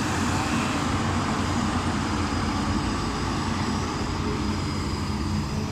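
Diesel engine of heavy earthmoving machinery running steadily, a constant engine drone with no change in pitch.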